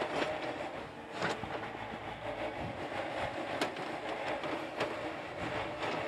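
Yanmar YB451 mini excavator's diesel engine running under load as the boom and bucket work, with a few sharp metal clanks from the machine.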